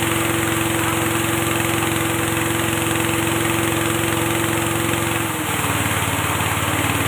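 Engine-driven rice bran milling machine running steadily with a constant mechanical hum. A little over five seconds in, its pitch steps down slightly and the level dips briefly before it carries on.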